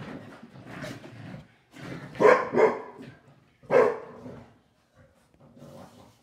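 Dogs at rough play, one of them barking: three loud barks, two in quick succession about two seconds in and a third near four seconds, with softer scuffling noise before them.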